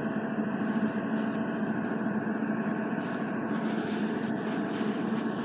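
A steady mechanical drone: a low hum with several steady tones above it over an even rushing noise, unchanging throughout.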